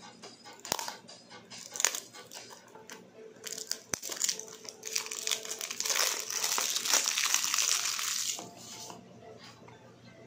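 Clear cellophane wrap being picked at and torn off a small cardboard box. It gives a few sharp crackles at first, then about four seconds of loud, continuous crinkling as the film is peeled away, before it quietens near the end.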